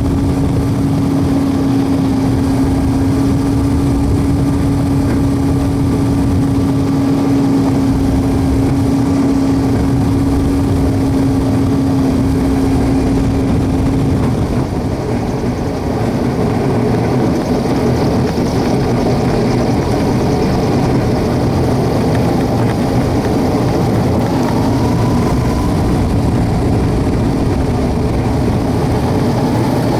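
Propeller engine of a homebuilt WAR Corsair replica running steadily during ground taxiing, with a steady drone whose pitch drops a little about halfway through as the power changes.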